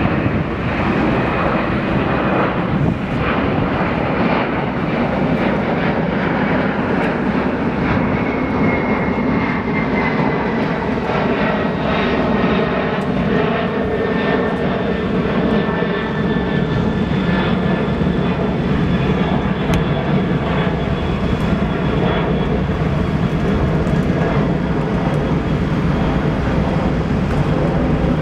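Loud, steady jet engine noise from a Boeing 747 coming in to land, with a high whine that slides down in pitch about eight to twelve seconds in.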